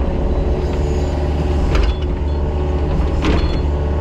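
Mini excavator's diesel engine running steadily under load while grading, with two brief sharp mechanical noises from the machine, about two and three and a half seconds in.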